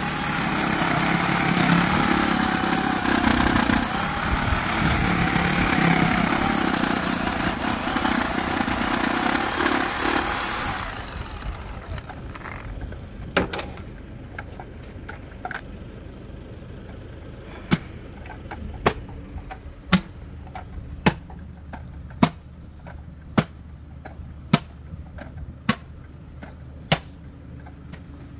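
An engine running steadily with a slightly wavering pitch, cutting off about eleven seconds in. After that come quieter, sharp clicks at an even pace of roughly one a second.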